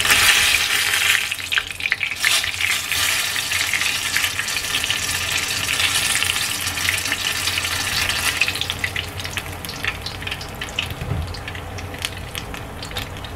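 Battered green chilies deep-frying in hot oil: a steady sizzle with crackles, loudest at the start and dying down over the last few seconds as the chilies are lifted out of the oil.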